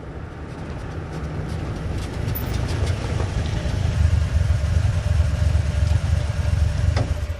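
An old truck's engine rumbling as it drives up, growing louder over the first few seconds and then holding close and steady. A short sharp sound comes near the end.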